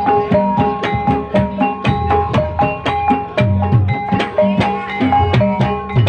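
Gamelan ensemble playing ebeg music: a kendang hand drum keeps a quick, even beat with low strokes that bend in pitch, over ringing bronze kettle gongs (bonang) and gongs.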